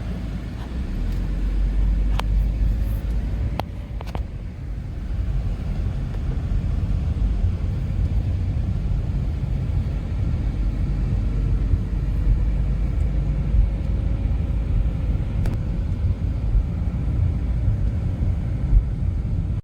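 Steady low rumble of a car being driven, road and engine noise heard from inside the cabin, with a few faint clicks.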